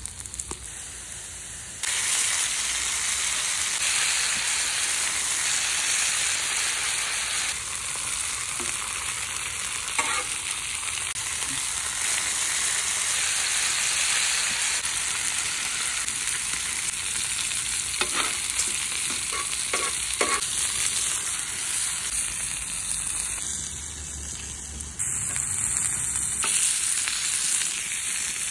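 Bacon, diced potatoes and sausages sizzling in hot fat on a round steel griddle, a steady hiss. A few sharp clicks from metal tongs on the steel as the food is turned.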